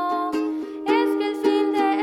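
A song performed live: a voice singing a gliding melody over a strummed small string instrument, with strums coming at a steady rhythm.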